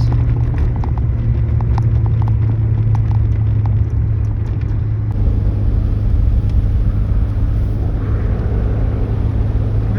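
1999 Toyota Tacoma pickup driving through deep snow while towing a loaded trailer: a steady low engine and road drone. Light short clicks and rattles come through in the first half.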